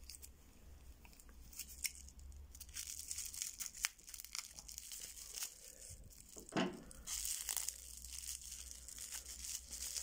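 Clear plastic wrapper crinkling and crackling as a new key is unwrapped by hand, with a denser, louder stretch about seven seconds in.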